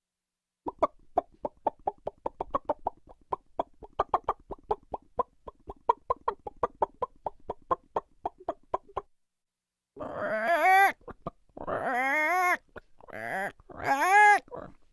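Chickens clucking in a rapid run of short clucks, about five a second. After a break of about a second, a few long, wavering, pitched cries follow.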